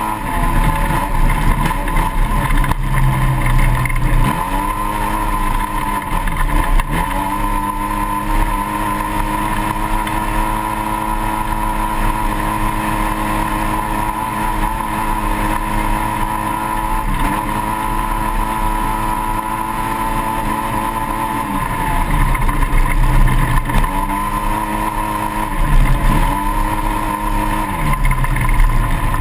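Onboard sound of a 2008 Polaris RZR side-by-side's engine running hard at high, steady revs during a dirt-track race. Several times the revs dip briefly and climb straight back, as the throttle is lifted and reapplied.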